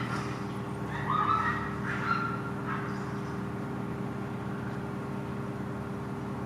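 Three short animal calls over a steady low hum.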